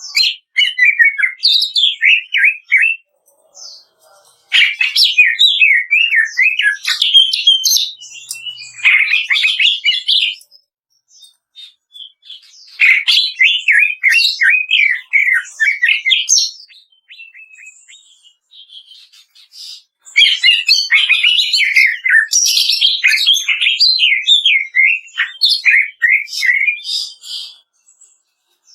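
Cucak ijo (green leafbird) singing its rapid, crackling 'kretekan' song in about five bouts of fast, jumping notes with short pauses between them. The longest bout comes in the last third.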